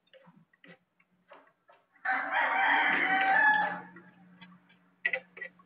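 A rooster crows once, a loud pitched call about two seconds long starting about two seconds in. Faint knife taps on a cutting board come before it.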